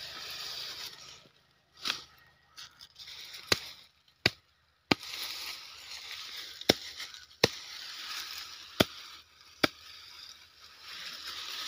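Cotton plant stalks being chopped at the base with a wooden-handled hand tool: about eight sharp strikes at uneven intervals, with leafy branches rustling between them.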